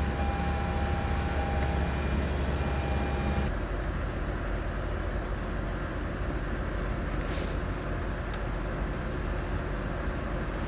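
Lexus IS250's 2.5-litre V6 idling just after starting, with a cylinder misfire put down to a burnt valve. A thin high whine runs over the idle and cuts off about three and a half seconds in.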